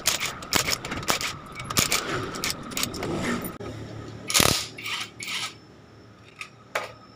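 Cordless impact driver working bolts on a motorcycle engine case in short bursts, with metal clinks and knocks between them. The loudest burst comes about four and a half seconds in, and a couple of lone clicks follow near the end.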